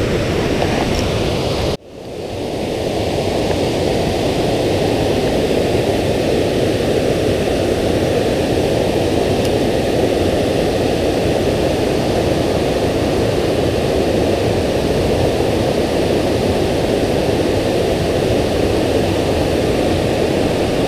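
Steady rushing of water pouring over a low dam spillway, a continuous roar that drops out briefly about two seconds in and swells back.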